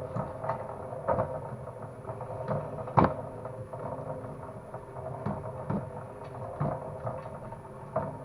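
Homemade motorized cable-stripping machine running with a steady drone, with irregular clicks and knocks as cable feeds through its knives, one sharp knock about three seconds in. The knives are set to a lighter tension after cutting too deep.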